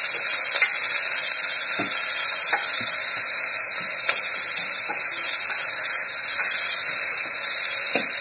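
Sliced onions sizzling in hot oil in a stainless steel pressure cooker as they sauté: a steady hiss. A steel ladle stirs them, knocking and scraping lightly against the pot now and then.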